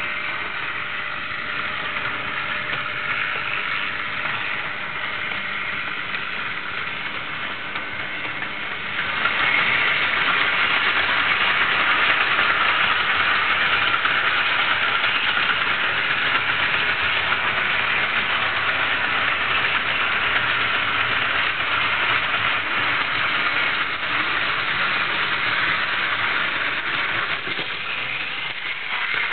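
A 1937 TRIX 14-volt AC model train running on its track: a steady whirring rattle of motor, gears and wheels that grows louder about nine seconds in as the train comes nearer.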